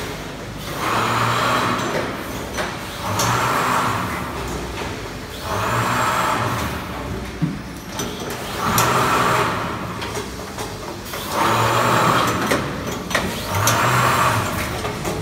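Automatic weighing and vacuum packing machine running through its cycle, with a burst of air hiss about every two seconds over a low mechanical hum.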